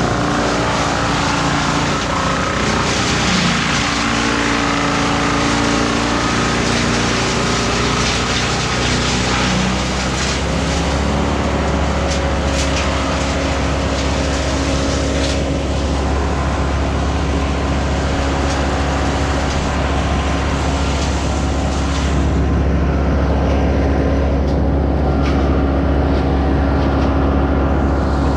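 An engine running continuously; its pitch shifts for about the first ten seconds, then it settles into a steady hum.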